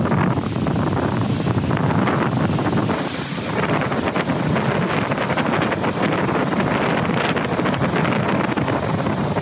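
Wind buffeting the microphone over the continuous wash of heavy surf breaking on the beach.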